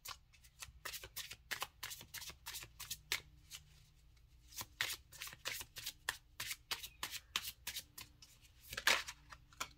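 Tarot cards being shuffled by hand: a long run of quick, light card flicks and slaps, thinning out for a moment about four seconds in.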